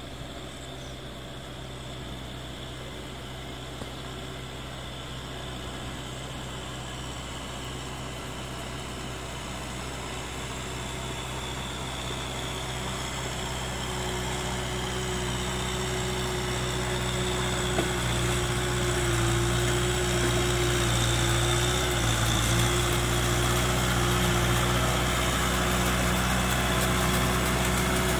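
Kubota M6040SU tractor's diesel engine running steadily under load as it pulls a rotary tiller through flooded paddy mud, growing louder as it comes closer. Its pitch dips briefly twice in the second half.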